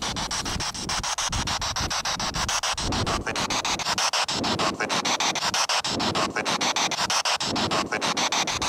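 Spirit box sweeping through radio stations: a loud hiss of static chopped into rapid, evenly spaced ticks many times a second, with brief broken snatches of radio sound. The investigators take it for a spirit voice answering their question, hearing 'Croft Hill' in it.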